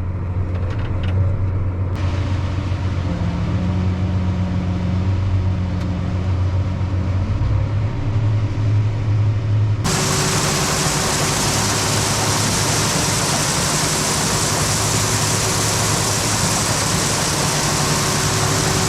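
A heavy engine running at a steady idle. About halfway through, this gives way abruptly to a loud, steady rushing noise with a constant hum, as of harvest machinery running under load.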